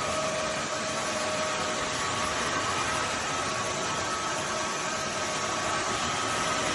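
Roborock F25 RT cordless wet-dry vacuum mop running in auto mode while being pushed over a hard floor: a steady whir with a faint high whine.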